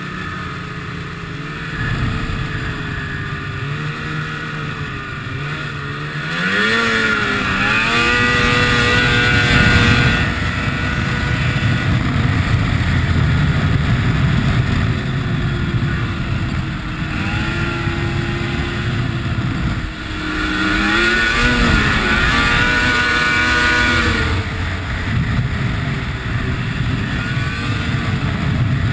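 Ski-Doo snowmobile engine under way on a trail: steady running, with the pitch climbing sharply twice as the throttle is opened, about a quarter of the way in and again about two-thirds of the way in.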